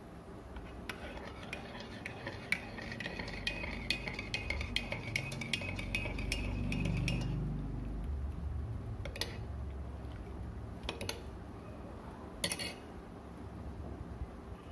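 Metal teaspoon stirring coffee in a ceramic mug, clinking quickly and repeatedly against the sides with a ringing note that rises slightly, for about six seconds. Then three separate clinks of the spoon against the mug, a second or two apart.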